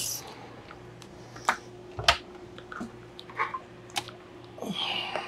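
Several sharp, separate clicks and knocks, irregularly spaced a second or less apart, over a faint steady hum.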